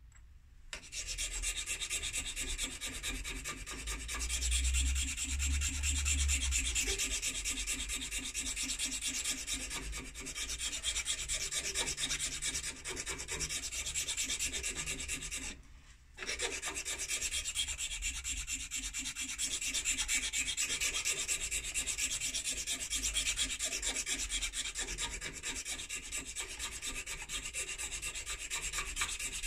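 Flat hand file rasping over a pipe stem in rapid back-and-forth strokes, shaping it; the filing stops briefly about halfway through, then resumes.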